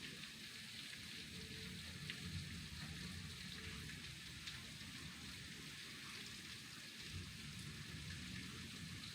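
Steady heavy rain pouring off a roof, with a few sharp drip taps here and there.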